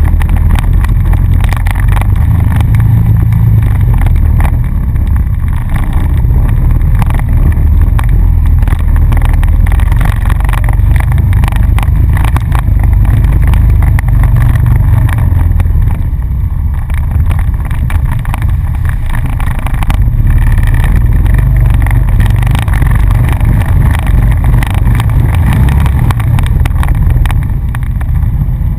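ATV engine running as the quad rides a rough dirt trail, its drone rising and falling a little with the throttle, with frequent knocks and rattles from the rack and frame over bumps.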